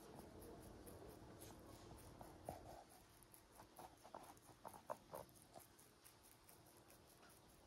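Near silence, with a faint run of short animal calls from about two to six seconds in.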